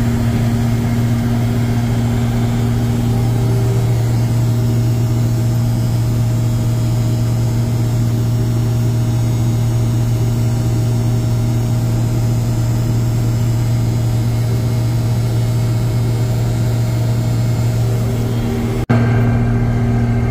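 John Deere 6620 Titan II combine, a six-cylinder diesel, running steadily under load while harvesting corn: a constant low engine drone with the threshing machinery. Near the end the sound drops out for an instant and comes back duller in the highs.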